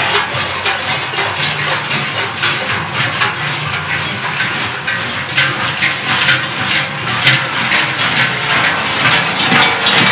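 Many large cowbells worn by Krampus figures clanging at once, a loud, dense, unbroken jangle of metal strikes.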